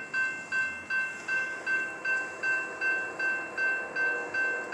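Railroad crossing warning bell ringing steadily, about two and a half strikes a second, as the crossing signals activate and the gates come down for an approaching train.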